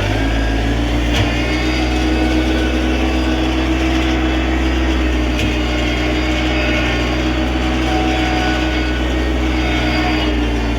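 Small 24-horsepower tractor engine running steadily under load, pulling a one-bottom plow through the ground.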